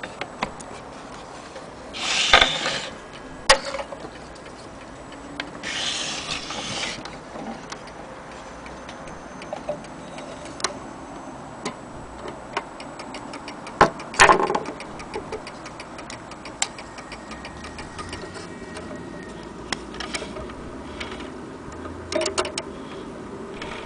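German mantel clock's movement ticking steadily, with handling noise from hands on the clock and its pendulum: two spells of rubbing in the first seven seconds, and a few sharp knocks, the loudest a pair about 14 seconds in.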